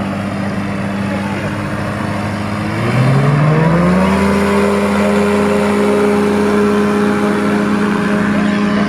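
Microlight trike's engine and propeller running steadily, then throttled up about three seconds in: the pitch rises and settles higher and louder as it powers into its take-off run.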